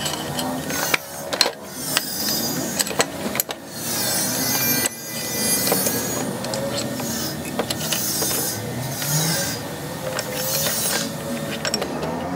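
Sharp metal clicks and clinks as a spanner works a fitting on a new diesel fuel feed pump housing held in a bench vise, several in the first few seconds, over a steady background noise.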